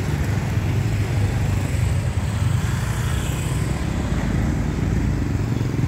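Small-engine motor scooters running as they ride past close by, a steady engine hum with traffic noise.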